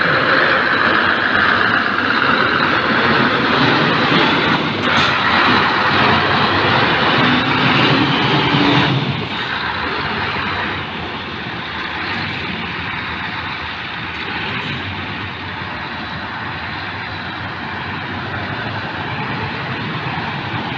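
Scania R580 tractor unit's 16-litre V8 diesel engine running as the truck pulls away, loud and steady up close, then dropping in level after about nine seconds as it moves off.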